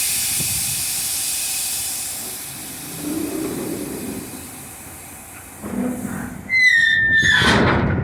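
Compressed air hissing steadily from a dump truck's air-operated tailgate cylinder system. Near the end come a brief falling squeal and a louder rush of air.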